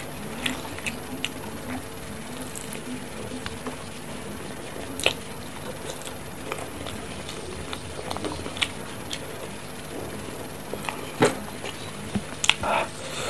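Close-miked chewing of a beef meatball (bakso): soft wet clicks and smacks scattered over a faint steady hum, with louder smacks about five and eleven seconds in.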